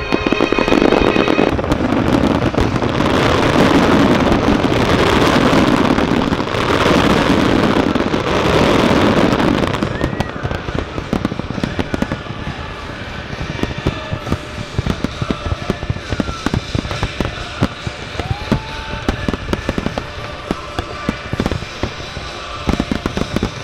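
Aerial fireworks display: a dense, continuous barrage of explosions and crackling for about the first ten seconds, then thinning out to separate bangs and crackles.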